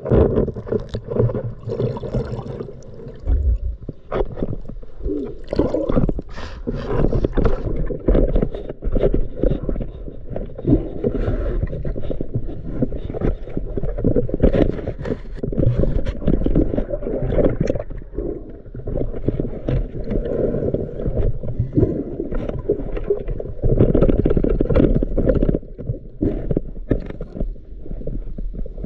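Underwater rushing and gurgling of water and bubbles against the camera, with many knocks and scrapes, as a spearfisher swims with his speargun and a speared fish. It starts abruptly and carries on without a break.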